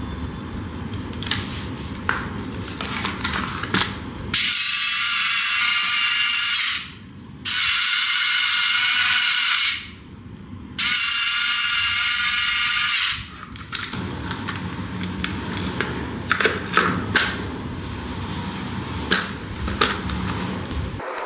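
Electric retractable landing gear on an RC model plane whining as its small gear motors drive the legs, in three runs of about two seconds each. Around them come clicks and rattles of parts being handled.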